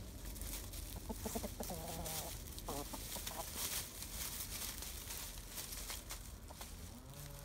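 Chickens clucking: a run of short, wavering calls between about one and three seconds in, and another near the end, over scattered crackles.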